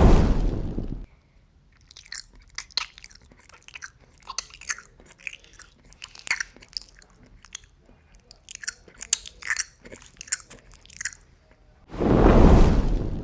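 Crunchy chewing sound effect: irregular sharp bites and crunches, several a second, for about nine seconds. A loud, deep rushing burst opens the clip, and another comes near the end.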